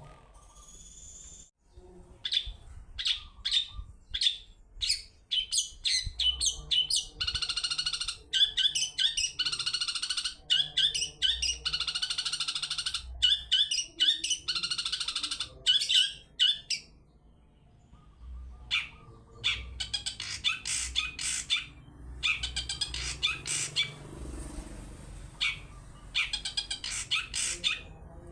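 Long-tailed shrike (cendet) calling: quick series of sharp, high chattering notes in long runs, with a pause of about two seconds a little past the middle.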